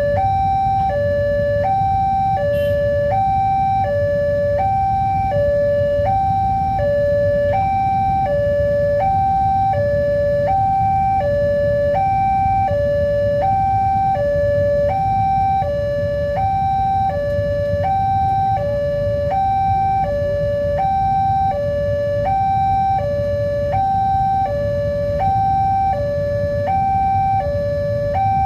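Electronic warning alarm of a railway level crossing sounding a steady two-tone ding-dong, a lower and a higher tone alternating about every two-thirds of a second, signalling that a train is approaching and the barrier is down. A continuous low rumble runs beneath it.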